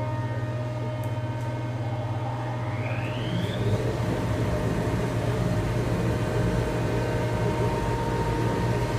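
A woodworking machine running with a steady hum. About three seconds in, a rising whine and a rush of air join it: the Jet dust collector starting up, switched on automatically by the sound of the tool.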